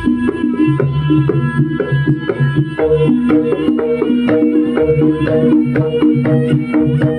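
Javanese jaranan gamelan playing live: bronze gamelan notes struck in a quick, even repeating pattern over hand-drum (kendang) strokes.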